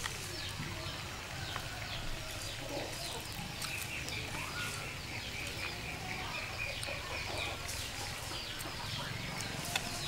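Chickens in the yard: many short, high, falling chirps throughout, with a quick run of evenly spaced notes in the middle, over a steady low hum.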